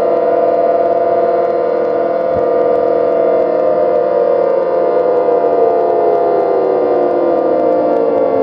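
Synthesized imitation of an old civil defense siren: a steady wail of several tones at once that begins winding down about three seconds in, its pitch sliding slowly lower.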